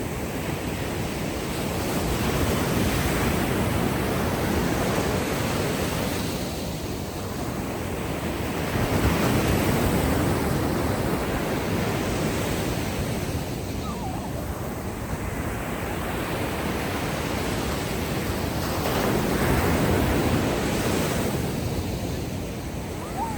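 Ocean waves washing ashore on a sandy beach: a steady rush of surf that swells and eases in slow surges, loudest about nine and again nineteen seconds in.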